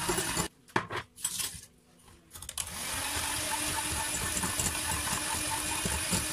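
Electric hand mixer running. It stops about half a second in, a few knocks follow, and from about two and a half seconds in it runs steadily again, beating an egg-yolk mixture in a ceramic bowl.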